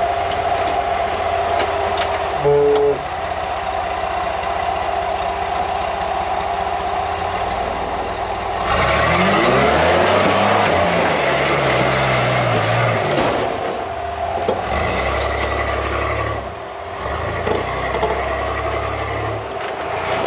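Rock buggy's GM Vortec 4.3 V6 engine running under load on a steep rock ledge, with a brief high squeal a couple of seconds in. About eight seconds in it is revved hard for momentum, engine speed rising and falling repeatedly as the tyres spin on the rock, then it eases and surges again near the end.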